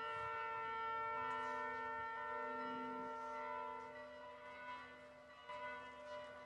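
Slow instrumental music, most likely brass: several long notes held together as a chord, fading out after about four seconds.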